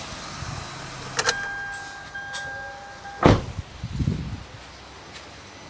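Perodua Bezza's 1.0-litre engine idling low, then stopping with a click about a second in. A steady beep follows for about two seconds. A car door shuts with a loud thump about three seconds in.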